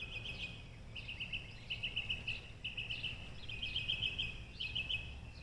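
Flock of birds in the trees chirping without a break, quick runs of high repeated notes overlapping one another, over a low steady rumble.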